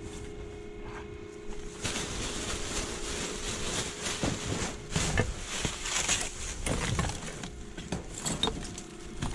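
Plastic trash bags rustling and crinkling as gloved hands dig through them, with small knocks and clatters of items shifted among the bags. The rustling starts about two seconds in.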